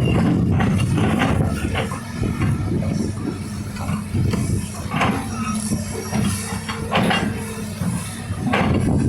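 Excavator's diesel engine running steadily while it digs sand, with scattered metallic knocks from the bucket and arm.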